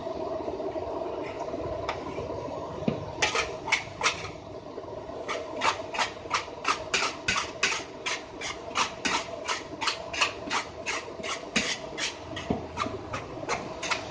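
A metal spatula scraping and knocking against a wok while fried rice is stirred, starting about three seconds in and settling into a rhythm of about three strokes a second, over a steady low hum.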